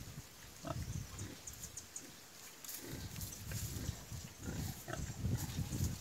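Heavily pregnant sow grunting low and snuffling as she roots with her snout in dry straw and earth, with light rustling and small clicks. A short run of grunts about a second in, then steadier, louder grunting from about halfway through.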